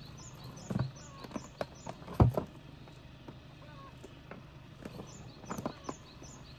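Outdoor ambience: a steady low hum and a high chirp repeating a few times a second, broken by a few sharp knocks and thumps, the loudest about two seconds in.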